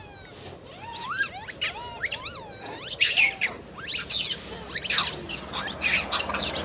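Long-tailed macaques calling: many short, high calls that rise and fall in pitch, several a second and overlapping, with crinkling of a plastic bag about midway.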